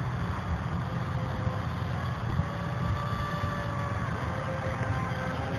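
Distant RC model airplane motor running overhead, a faint pitched note that slowly shifts up and down as the plane flies its manoeuvres. Under it is a steady low rumble, like wind on the microphone.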